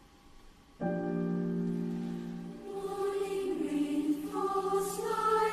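Secondary school choir singing: a held chord enters abruptly about a second in, then the voice parts move to new pitches, with a sibilant consonant near the end.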